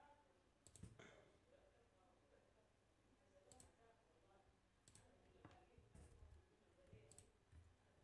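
Near silence, broken by a handful of faint, sharp computer-mouse clicks at irregular intervals as commands and points are picked on screen.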